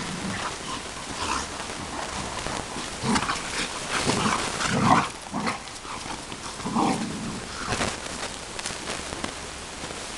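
Two American bulldogs play-fighting, growling at each other in uneven spells, loudest around the middle.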